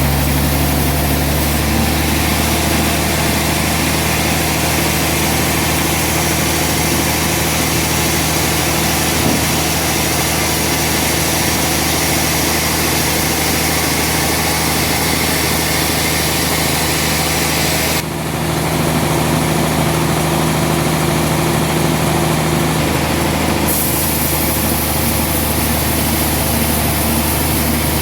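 Sawmill machinery running steadily, with a deep engine hum under a loud hiss. About eighteen seconds in the sound changes abruptly: the hiss thins out for a few seconds, then returns.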